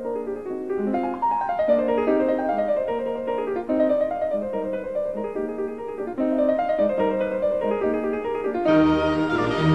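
Background piano music: a melody of single notes moving over a running accompaniment. Near the end a fuller, deeper accompaniment joins in.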